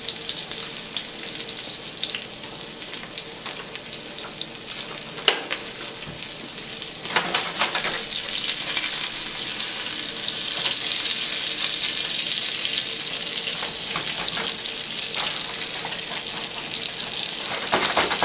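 A red snapper fillet frying skin-side down in hot oil in a nonstick pan, sizzling steadily. The sizzle grows louder about seven seconds in, and there is a single sharp click about five seconds in.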